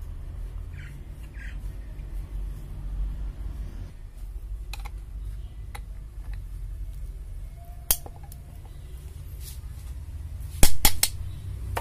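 Sharp metallic clicks and clinks from a band-type piston ring compressor being clamped around a piston, loudest in a quick run of about three clicks near the end. A low steady rumble runs underneath.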